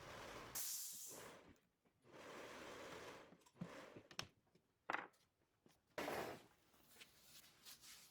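Faint, intermittent work sounds: brief rustles and a few light clicks and knocks, from hands and tools working on the door panel.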